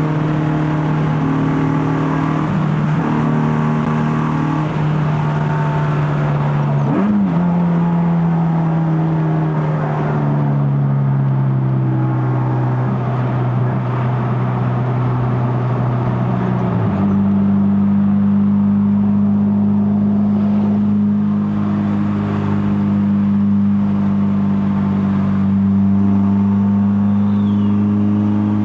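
Honda K24A four-cylinder engine with a straight-pipe stainless exhaust, running at steady revs under way. The note gives a short jump about 7 seconds in and sinks slowly, then steps up to a higher steady pitch about 17 seconds in.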